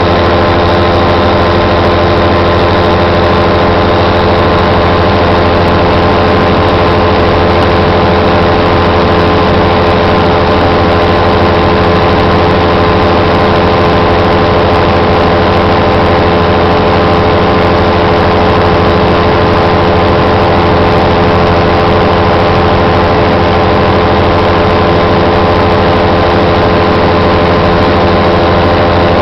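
Paramotor engine and propeller running steadily in flight at a constant throttle, loud and even, with no change in pitch.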